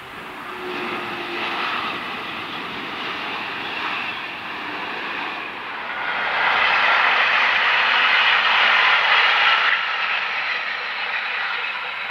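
Double-deck TGV high-speed train running past at speed: a steady rush of wheel and air noise that swells about halfway through, then eases off near the end.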